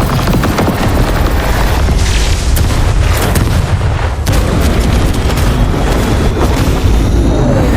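Sound effects for an animated fight: dense, continuous booms and blast impacts, one after another.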